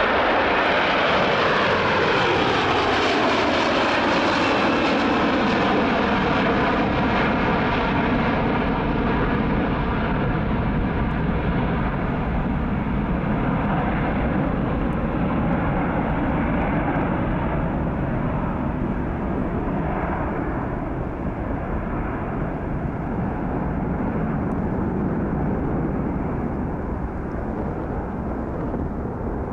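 Brussels Airlines Airbus A330's twin jet engines at take-off thrust as the airliner climbs away: a steady loud roar with a sweeping, phasing whoosh over the first several seconds, growing duller and a little quieter as it recedes.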